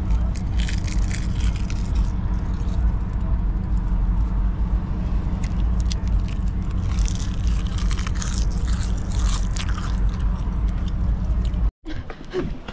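Steady low rumble of a car cabin on the move, with scattered rustling and scraping handling noises over it; the sound cuts off abruptly near the end.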